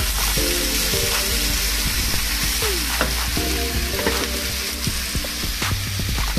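Pork and onion frying in a pan with a steady sizzle, scraped and stirred with a wooden spatula that clicks against the pan.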